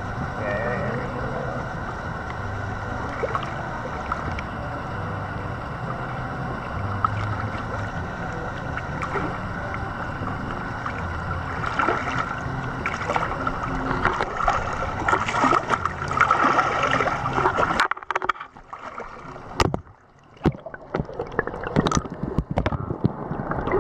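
Steady wash of shallow water lapping against rock. About 18 seconds in the microphone goes underwater: the sound turns dull and muffled, broken by scattered bubbling clicks and knocks.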